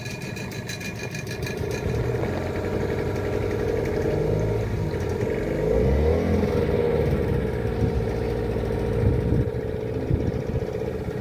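Boat engine running steadily, its pitch shifting up and down a few times about halfway through.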